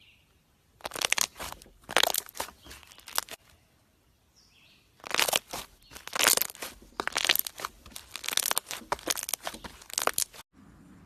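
Slime being pressed and squished by hand, crackling and popping in quick clusters, in two stretches: about one to three seconds in, then from about five seconds until it cuts off suddenly near the end.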